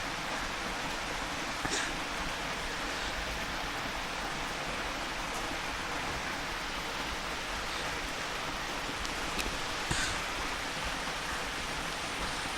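Steady hiss of heavy rain, with a couple of faint light clicks.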